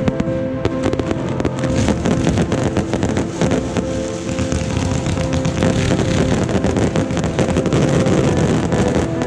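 Fireworks display going off in a dense, rapid volley of bangs and crackles from bursting aerial shells, with background music continuing underneath.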